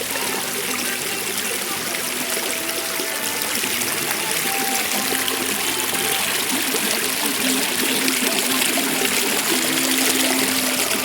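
Steady rain falling, with water running and trickling, growing slightly louder toward the end.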